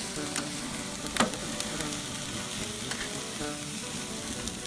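Food sizzling on a hot grill, a steady crackling hiss, with an instrumental stretch of a Mexican corrido playing over it and a sharp click about a second in.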